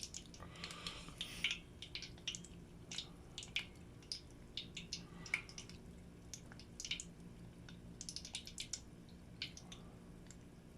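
Croquettes and a pie deep-frying in hot oil in a tempura pot: the oil crackles with irregular pops, a few each second, over a faint steady low hum.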